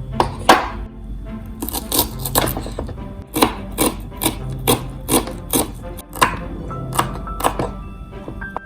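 Knife chopping on a small cutting board: a string of sharp, uneven knocks, about two a second, over background music.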